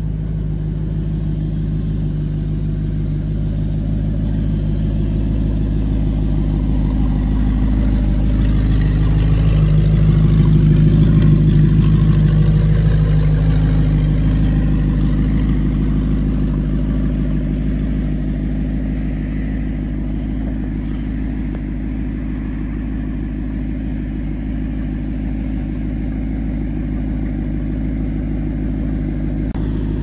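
2009 Audi R8's engine idling steadily. It grows louder around ten seconds in, then eases back.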